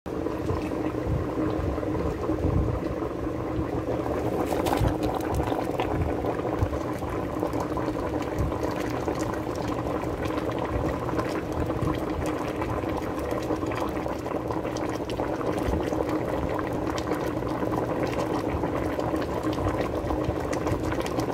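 Pot of soup boiling: a steady bubbling with frequent small pops.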